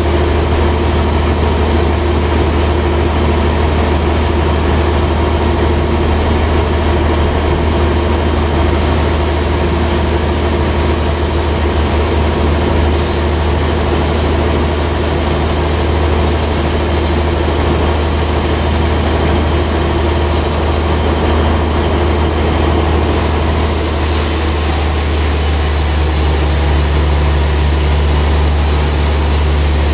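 Log band-saw mill machinery running steadily with a loud low hum while a trembesi log is pushed into place on the carriage, not yet being cut; a further low hum joins near the end.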